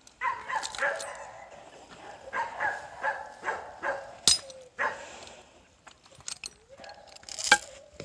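A dog barking and whining in short repeated calls, with two sharp metal strikes of a hammer on a steel chain link, one about four seconds in and a louder one near the end.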